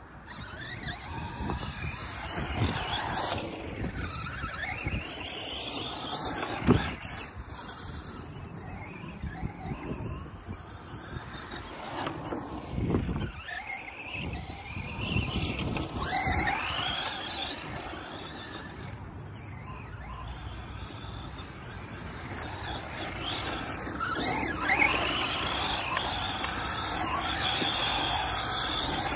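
ARRMA Mojave 4S RC desert truck's brushless electric motor whining up and down again and again with the throttle as the truck slides and drifts across sandy dirt, tyres scrubbing and throwing grit. A sharp knock about seven seconds in.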